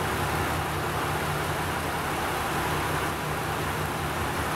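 KiHa 150 diesel railcar standing with its engine idling: a steady low engine hum with an even hiss over it.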